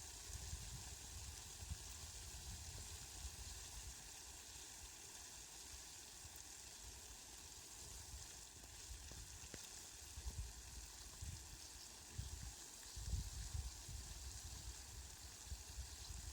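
Rain falling steadily, a faint even hiss, with irregular low rumbles that are loudest about thirteen seconds in.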